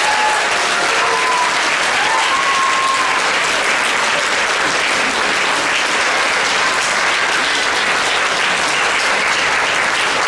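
Audience applauding steadily at the end of a choral piece, with a few cheers in the first three seconds.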